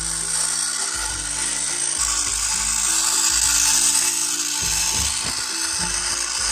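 Background music with a bass line that steps from note to note, over the steady whir of a battery-powered TrackMaster Hugo toy train motor running along plastic track.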